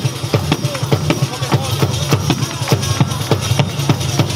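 Live folk band playing dance music, with accordion and a quick, steady percussion beat.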